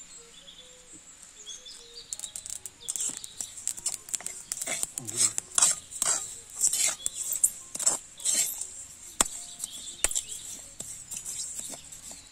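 Metal spoon stirring and scraping sesame seeds around a metal pan: irregular rasping strokes with clinks of metal on metal, starting about two seconds in.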